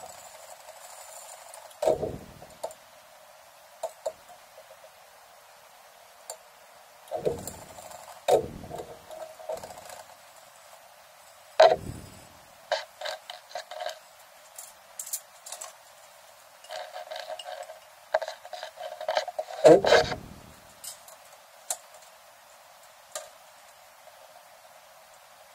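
Cookware handling: a pan of freshly popped popcorn and its glass lid knocked, lifted and set down, with several separate thuds. In the second half, popcorn tipped out of the pan rattles into a glass bowl.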